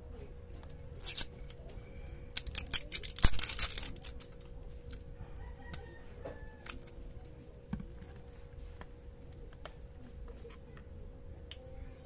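Crackling, tearing noise in short bursts, loudest about three seconds in, as the plastic screw cap is twisted off a bottle of engine oil and its seal breaks, followed by scattered light clicks of gloved hands handling the bottle and oil filter.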